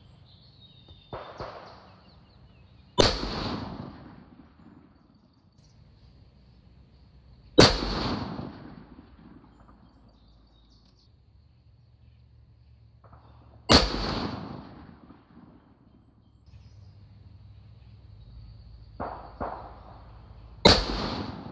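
Four single rifle shots from a 6mm Creedmoor bolt-action precision rifle, each a sharp crack with about a second of echo, spaced roughly five to seven seconds apart. Quieter clacks come between some of the shots.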